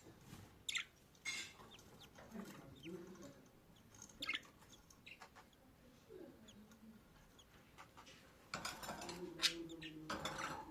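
Newly hatched budgerigar chicks cheeping: short, scattered raspy peeps, then a longer run of louder raspy calls near the end.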